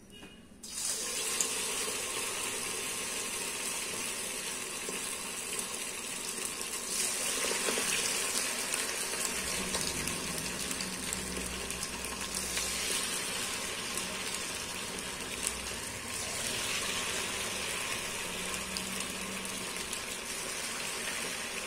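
Vermicelli bonda batter deep-frying in hot oil in a steel kadai: a steady sizzle that starts suddenly under a second in as the batter balls go into the oil.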